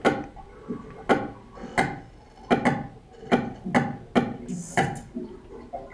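Sperm whale clicks recorded underwater: loud, sharp clicks at an uneven pace, roughly one every half second, each with a short ringing tail. The whale is echolocating on a nearby freediver.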